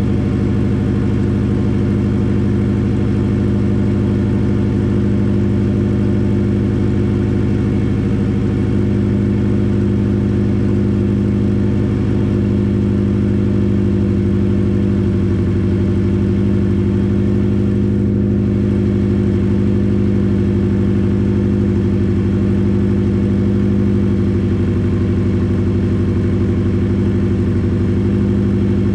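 Subaru Impreza flat-four boxer engine idling steadily with no exhaust fitted, which makes it loud; it is ticking over while it warms up after being fired up.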